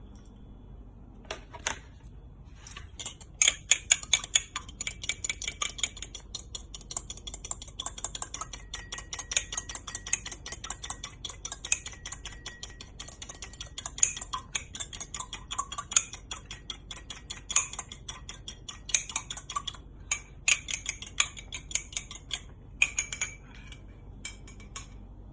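A utensil clicking rapidly against the inside of a cup as egg and milk are beaten together, starting about a second and a half in and going on with a few brief pauses.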